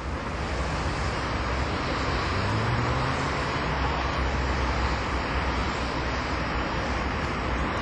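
Steady low rumble and hiss of vehicle noise, with a faint rising hum about two seconds in.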